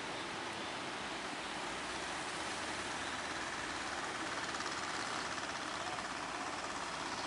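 Fishing boat's engine running steadily as the boat drives through the surf, blended with the rush of waves and water.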